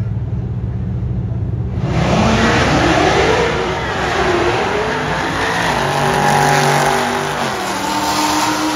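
A black SUV's engine at full throttle in a drag-strip launch. It runs steady at first, then about two seconds in it gets much louder as the car launches, and the engine note climbs, drops back at the gear changes and climbs again as the car pulls away down the strip.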